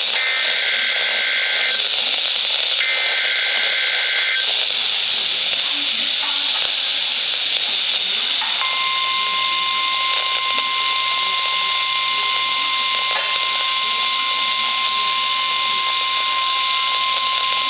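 NOAA Weather Radio emergency alert received through heavy static hiss. Two short bursts of shrill digital data tones (the SAME alert header) sound first. About eight and a half seconds in, the steady 1050 Hz weather radio warning tone starts and holds to the end.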